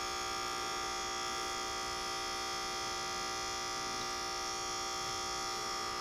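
Aquarium air pump running on mains power: a steady electric hum.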